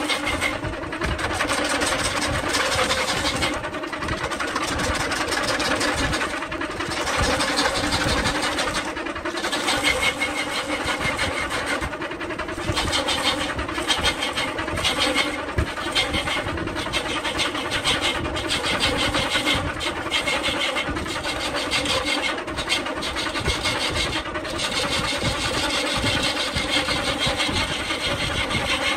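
Belt-driven wood lathe running while a hand-held gouge cuts into a spinning coconut palm log: a steady motor hum under a harsh scraping of the tool on the wood. The cutting noise keeps breaking off briefly and coming back as the tool is worked along the log.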